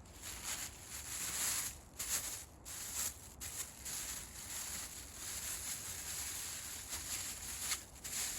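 Irregular rustling noise that comes in uneven stretches broken by short pauses.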